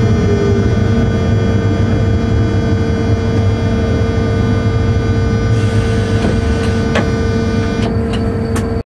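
Cab of a class 363 electric locomotive on the move: a steady low rumble under a constant electrical whine. Several sharp clicks come near the end, and the sound cuts off suddenly just before the end.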